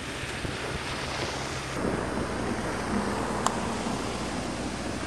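Traffic on a snow-covered highway: a vehicle's tyres hiss on the snowy road as it passes over the first couple of seconds, then a steady low rumble of traffic, with one short click near the middle.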